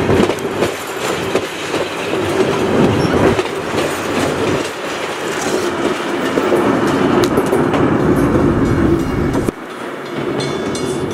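A passenger train rolls past close by: coaches followed by a trailing diesel locomotive, steel wheels clattering over rail joints under a steady rumble. The noise drops suddenly about nine and a half seconds in as the end of the train clears.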